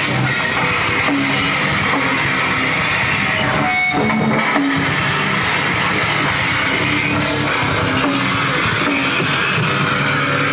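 Post-hardcore band playing live and loud: distorted electric guitars, bass and drum kit, with a short break just before the middle.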